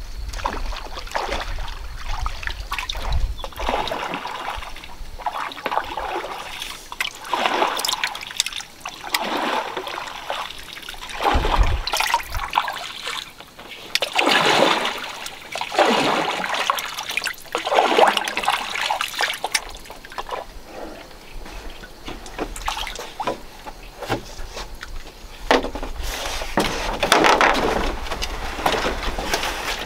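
Water sloshing and splashing against and between the bamboo poles of a raft as it is poled along. The splashes swell and fade every couple of seconds.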